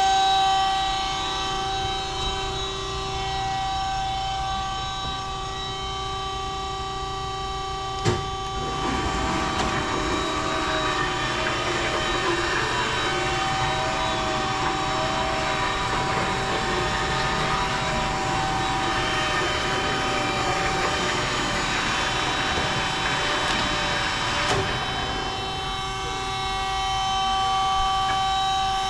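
Peerless VB-1820XL vertical band saw running with a steady whine of several fixed tones. About eight seconds in, a sharp click comes and a rougher, slightly louder hiss joins the whine. It stops with another click near the end, leaving the plain running whine.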